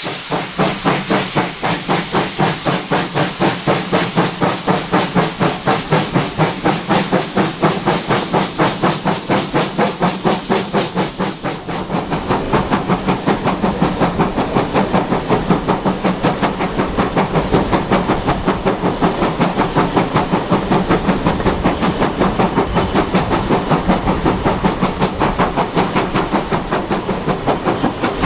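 Two-cylinder GWR Manor class 4-6-0 steam locomotive 7822 Foxcote Manor working hard, heard from the train behind it: a steady fast chuff of exhaust beats, about three or four a second, over a hiss of steam. The beats grow louder and heavier about halfway through.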